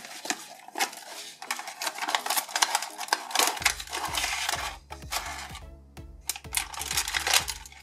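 Cardboard box and clear plastic blister tray crinkling and rustling as they are opened and handled by hand, over background music whose bass comes in about halfway through.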